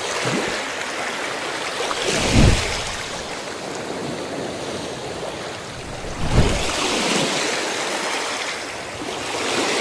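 Steady surf-like rushing, swelling twice with a low thud, about two and a half and six and a half seconds in, like waves breaking.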